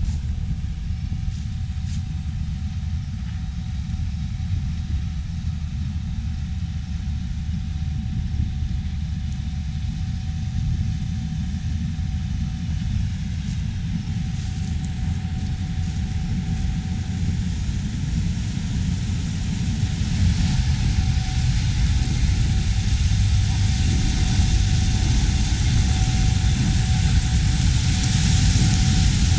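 Gleaner S88 combine harvesting corn: a steady engine rumble with a faint whine. It grows louder and brighter about two-thirds of the way through.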